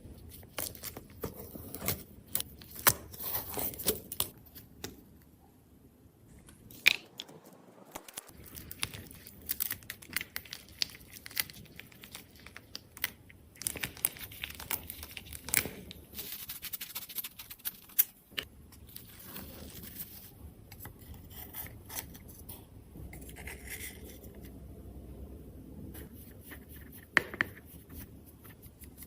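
Close-up handling sounds: irregular small clicks and taps mixed with short scrapes and rustles, with a few sharper clicks standing out.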